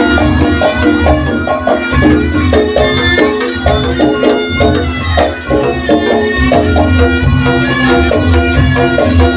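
Loud traditional Javanese jaranan accompaniment for a jathilan dance: a quick, even hand-drum rhythm over a held low tone, with a higher melody on top.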